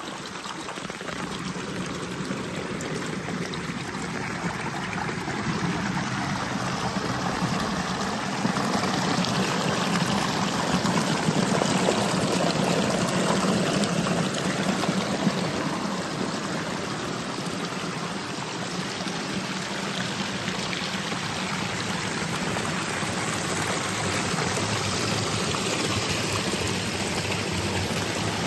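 Small mountain brook splashing and trickling over boulders, with a little cascade pouring between the rocks. A steady rush of water that grows louder about a third of the way in and eases a little after the middle.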